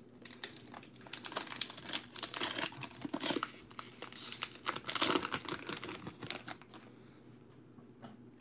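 A foil trading card pack being torn open and crinkled in the hands. The crinkling crackles for several seconds and dies down near the end.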